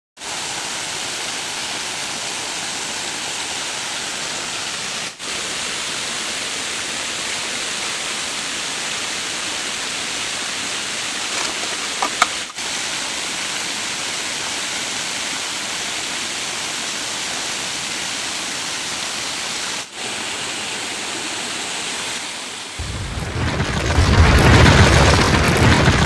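Steady rush of a small waterfall and stream water running over rocks, dipping out briefly three times. In the last few seconds a louder, deep rumbling, crashing sound effect swells in.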